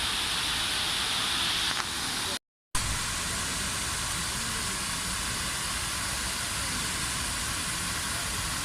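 Steady rushing of falling water, an even hiss with a low rumble beneath, broken by a short cut to silence about two and a half seconds in.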